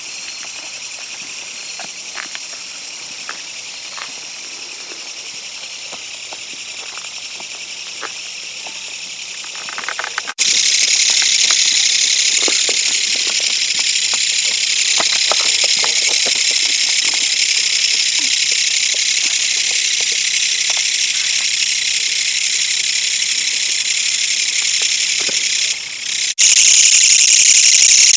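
Dense chorus of autumn night insects, crickets and katydids, trilling and chirring steadily at high pitch. It jumps abruptly louder about ten seconds in and again near the end.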